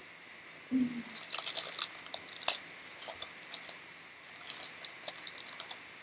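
Trading cards being handled and flipped through: a run of quick, light rustles and crinkles.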